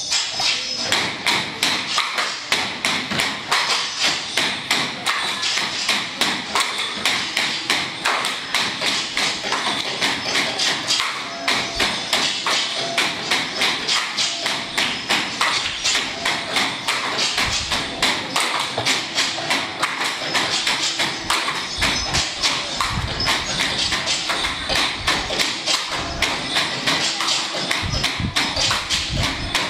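Bamboo poles clapped together and knocked on a wooden stage floor for a Philippine bamboo-pole dance, keeping up a fast, steady rhythm of sharp clacks and knocks.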